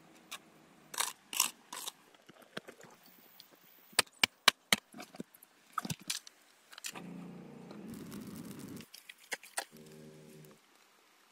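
Digging tools striking and scraping packed dirt: a string of sharp thuds and scrapes over the first six seconds. Then about two seconds of steady rumbling noise and, near the end, a short low pitched drone.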